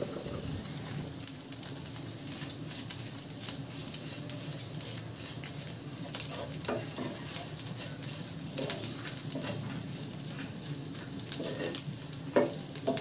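Wooden spatula stirring and scraping a mashed fish mixture around a non-stick frying pan, in short irregular strokes and taps, over a light sizzle of oil.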